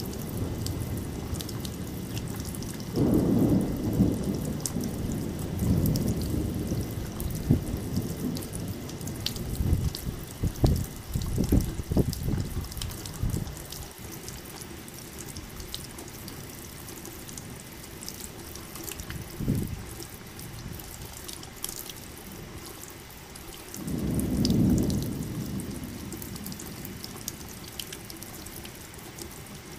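Rain falling steadily with thunder. A long, deep rumble runs through the first several seconds. Sharp crackling cracks come around ten to thirteen seconds in, and another rumble swells about twenty-four seconds in.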